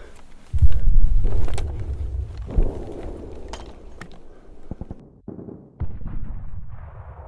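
War-film battle sound: a loud, deep boom about half a second in, then scattered sharp gunshots.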